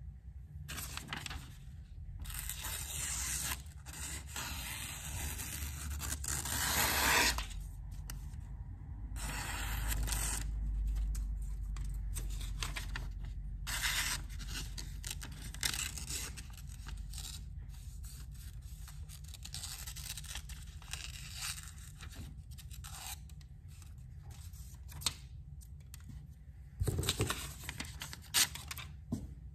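A series of scraping, tearing strokes from a knife blade drawn through or along a material. The first strokes each last a few seconds, and later ones are shorter and more scattered.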